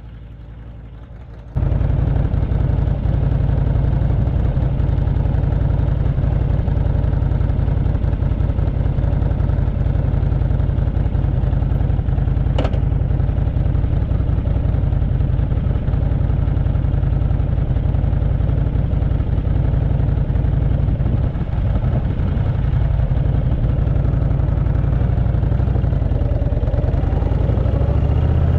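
Cruiser motorcycle engine idling steadily, picked up by a helmet-mounted action camera. It gets suddenly louder about a second and a half in, and near the end it revs up as the bike pulls away.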